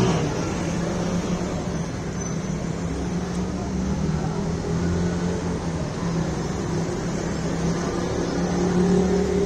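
Steady low drone of a running engine or motor, with a hum that rises slightly in pitch and loudness near the end.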